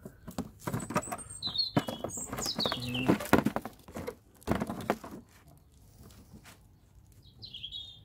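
Rustling and crinkling of bubble wrap and cardboard packaging as a flexible solar panel and its cables are lifted out of the box, dying down after about five seconds. A bird chirps a few times during the rustling and again near the end.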